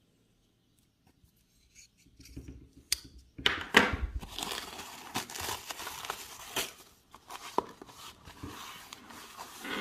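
Tape and white packing wrap being torn and peeled off a small box by hand, with crinkling rustles. Quiet for the first couple of seconds, then steady tearing from about three and a half seconds in, loudest at its start.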